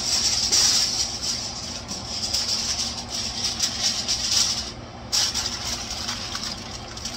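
Aluminium foil crinkling and rustling as a sheet is handled and pressed over a pan, with a short lull about five seconds in, over the steady noise of a running kitchen fan.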